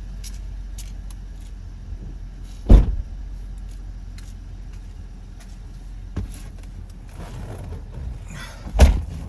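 Two slams on a 2013 Cadillac CTS4, about six seconds apart: the trunk lid shut, then a door shut, over a steady low rumble.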